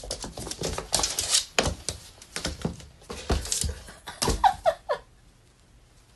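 Rapid clicking and knocking of a small ball and a cat's paws skittering on a hardwood floor during a chase, with a few short falling chirps about four and a half seconds in. The clatter stops about five seconds in.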